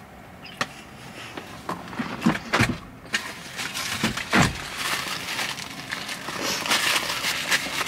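Close-up chewing with scattered mouth clicks, then a paper food wrapper crinkled and rustled in the hands for several seconds, with one dull thump partway through.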